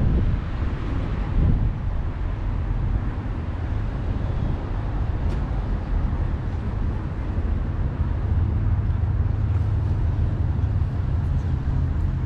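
Outdoor engine rumble of passing traffic, steady and low, with a deeper steady hum coming in about eight seconds in.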